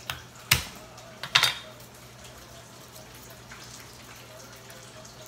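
Kitchen knife knocking on a wooden cutting board as the flat of the blade smashes garlic cloves: four sharp knocks in the first second and a half, the second and last loudest.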